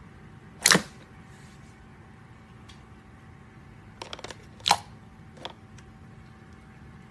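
Clear slime pressed and poked with fingers, giving sharp popping clicks: one loud pop about a second in, a quick run of small clicks about four seconds in followed by another loud pop, then a fainter one.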